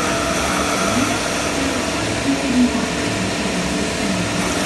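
Milking machinery in a dairy shed running: a steady mechanical hum and hiss from the milking units and automatic cup removers.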